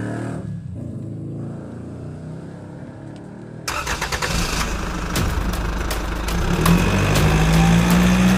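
Vehicle engine sound, low and rumbling, that switches abruptly about three and a half seconds in to a louder engine-like running full of clicks and rattles, with a steady low hum joining near the end.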